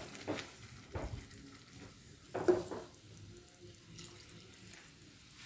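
Water poured from a glass into a thick, simmering curry in a nonstick pan to thin it, with a wooden spatula stirring and scraping through it in a few short strokes in the first half.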